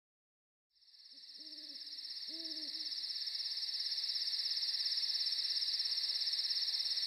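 Night ambience: crickets chirring steadily in a fast pulsing trill, fading in about a second in, with two short owl hoots about a second apart soon after.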